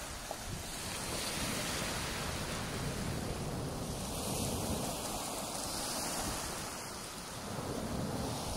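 Small waves from a calm sea washing onto a shingle beach: a steady rush of surf that swells about a second in, eases near the end and rises again, with some wind on the phone's microphone.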